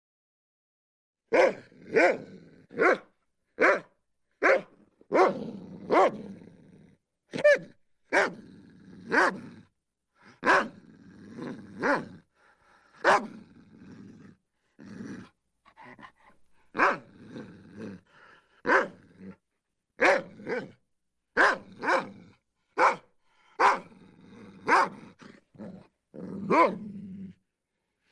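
A dog barking over and over, short sharp barks coming about once a second after a silent first second, with low growling between some of them.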